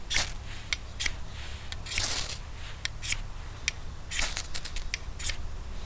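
Ferro rod scraped repeatedly against a Bushbaby bushcraft knife held still: a run of quick, irregular rasping strikes, a couple of them longer, throwing sparks onto feather sticks to light a fire.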